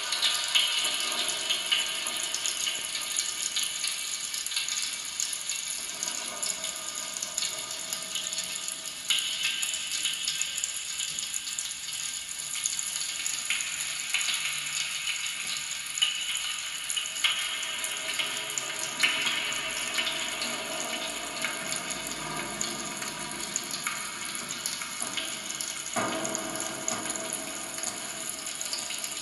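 Experimental noise performance played on amplified kitchen objects and popping candy: a dense fizzing, crackling hiss with faint steady high tones, its texture changing every few seconds.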